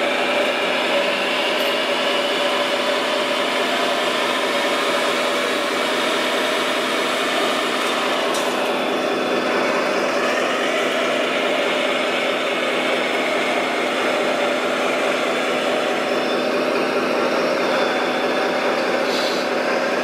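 Radio-controlled model wheel loader at work: a steady engine drone under the whine of its electric motors and hydraulics, which rises and falls as it drives into the gravel pile, fills its bucket and backs away.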